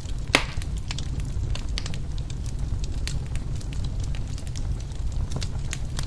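Wood fire crackling in a fireplace: scattered snaps and pops over a steady low rumble, with one louder pop about a third of a second in.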